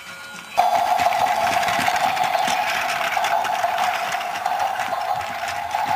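Small electric motor and plastic gears of a battery-powered knockoff Thomas toy train running: a loud, steady whine with a rattle, close up. It starts abruptly about half a second in.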